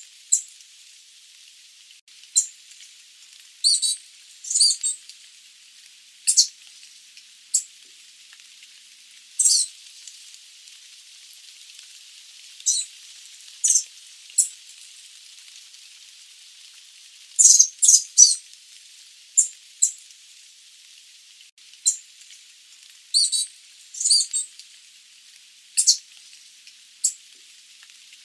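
Sooty babbler giving short, sharp, high-pitched calls, singly or in quick pairs, every second or two, over a faint steady hiss.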